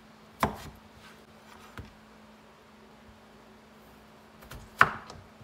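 Kitchen knife cutting through raw potatoes and knocking on a wooden cutting board: a few sharp knocks, the loudest about half a second in and near the end, over a faint steady hum.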